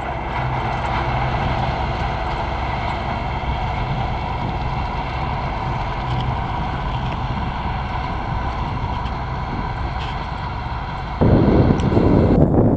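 MTZ 820 tractor's four-cylinder diesel engine running steadily under load while pulling a heavy disc harrow through the soil. About eleven seconds in the sound changes abruptly to a louder, rougher rumble.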